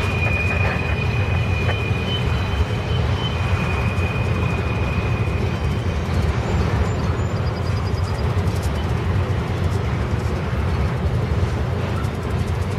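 Intermodal freight cars rolling past: a steady rumble of steel wheels on rail, with a thin high wheel squeal that fades out about halfway through.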